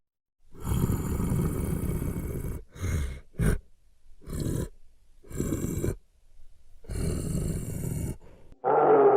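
Yeti monster sound effect: a long growl about half a second in, then a string of short growls and grunts, and another growl of over a second. Near the end a different, pitched call starts, falling in pitch.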